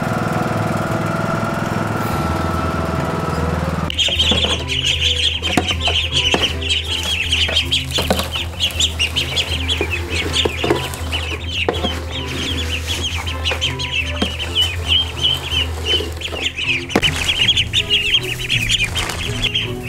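A riding lawn mower's engine runs steadily for about the first four seconds. It gives way to a brood of ducklings peeping constantly, high and shrill, with a few knocks of a feed scoop.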